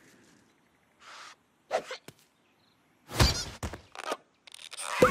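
Cartoon sound effects: a loud, deep thud about three seconds in, followed by a few lighter knocks, as something heavy lands on the bird and flattens it.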